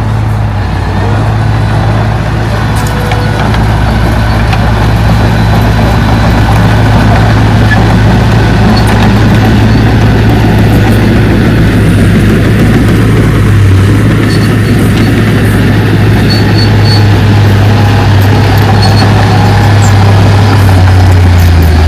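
Diesel engine of heavy earthmoving machinery running steadily with a low hum, with a few faint clicks over it. Its note drops a little near the end.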